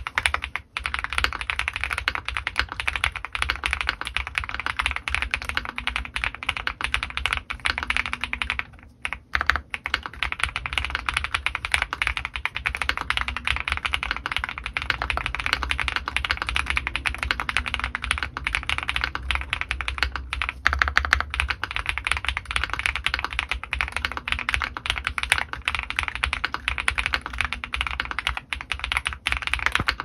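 Fast, continuous typing on an Owlab Mr.Suit custom mechanical keyboard fitted with lubed TTC Holy Panda tactile switches and GMK Serenity ABS keycaps, with a brief pause about nine seconds in.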